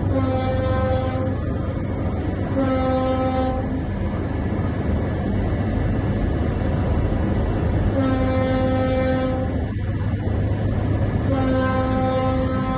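A ship's horn sounds four blasts of about a second each, at uneven gaps, over a steady low rumble of wind and engine.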